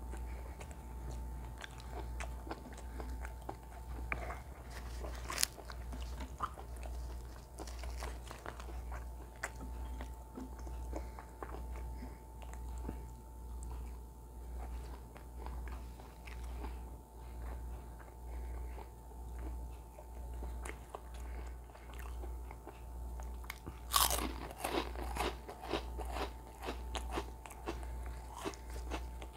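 Close-up mouth sounds of a person chewing curry and flatbread, with small wet clicks throughout. About three-quarters of the way through comes a loud, crunching bite into a crisp fried lattice-shaped snack. A steady low hum runs underneath.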